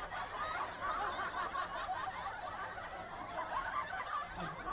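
Soft, continuous snickering laughter.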